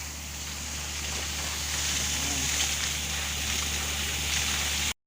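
Water and air gushing steadily out of a deep well as compressed air blows it clear, over a steady low hum. It cuts off suddenly near the end.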